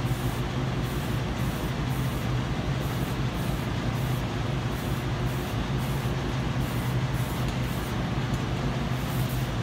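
Aerosol can of filler primer spraying in quick short passes, its hiss coming and going, over the steady rushing and low hum of a spray booth's exhaust fan.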